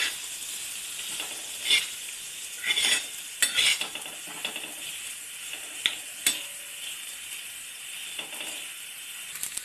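Chopped onions sizzling in oil and butter on a pav bhaji tawa, stirred with a spatula that scrapes across the pan in irregular strokes.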